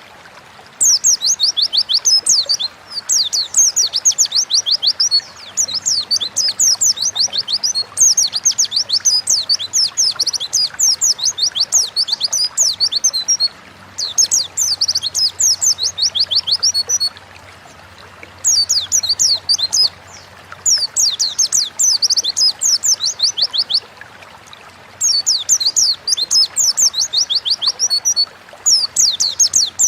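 White-eye (pleci) singing in the long, rambling ngalas style: rapid runs of high, downward-sliding chirps, in bursts of two to five seconds with short pauses between.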